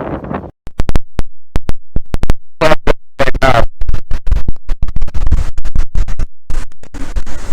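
Hurricane-force wind gusts buffeting the microphone, overloading it into loud, distorted crackling and rumbling.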